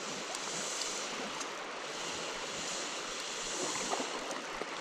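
Shallow stream running over a stony bed: a steady rush of moving water.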